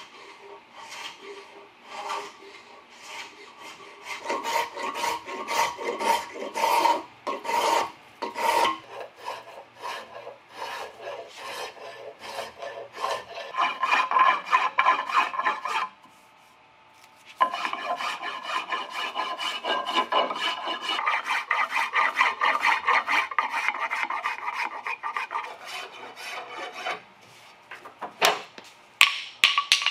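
A spokeshave shaving a wooden baseball bat handle by hand: repeated scraping strokes with a ringing edge, short and quick at first, then longer and steadier after a brief pause. Near the end come a few sharp knocks as the bench vise is loosened.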